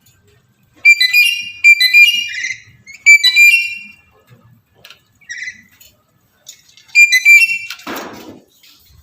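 Black-capped lory giving loud, shrill calls in three runs of quick notes, with a single short call between the second and third runs. The calls are those of a male in breeding condition calling for a female. A brief rustle follows the last run.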